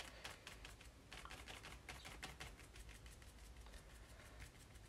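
Small craft sponge dabbing watery acrylic paint onto a paper card: a quick run of faint, light taps, several a second.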